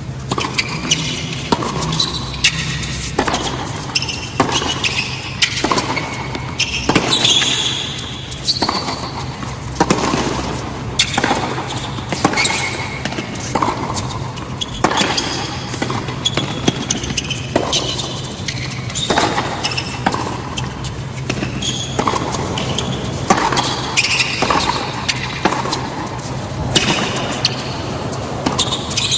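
A long tennis rally on a hard court: racket strikes on the ball about once a second throughout, with short squeaks of the players' shoes on the court between shots, over a steady low hum.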